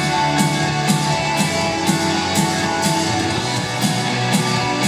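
Rock band playing live: electric guitars, bass and drums in an instrumental passage without singing, the drums marking a steady beat of about two hits a second.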